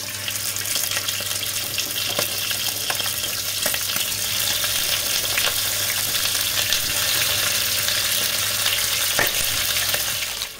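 Cheeks (carrilleras) searing in hot olive oil in a pot: a steady sizzling crackle with scattered pops as the pieces are laid in. It cuts off suddenly near the end.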